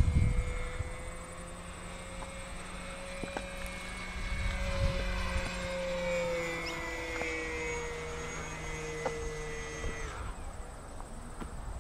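Small electric RC model airplane's motor and propeller whining steadily as it flies overhead, the pitch drifting slightly up and down, then throttled back about ten seconds in. A low rumble on the microphone at the start.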